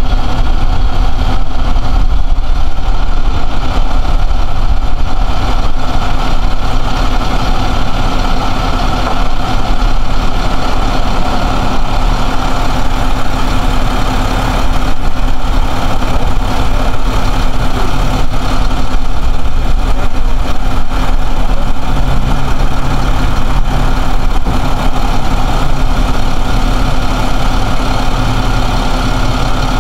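Large truck engine idling steadily: a continuous low hum with a steady tone in it.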